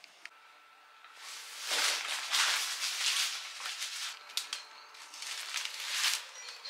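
Irregular swells of rustling noise, with a few sharp clicks among them.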